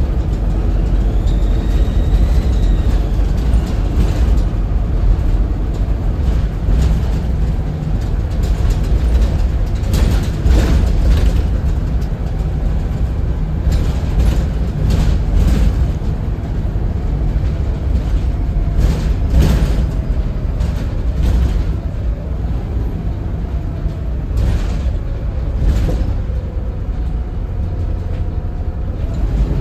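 Volvo B7RLE bus's seven-litre six-cylinder turbo diesel running under way with a steady low rumble; a faint turbo whistle rises and falls near the start. Several short knocks and rattles come around the middle.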